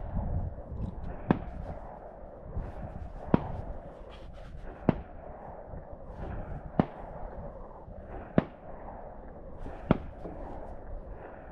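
A series of sharp gunshots on a shooting range, one crack every one and a half to two seconds, seven in all, over a steady low rumble.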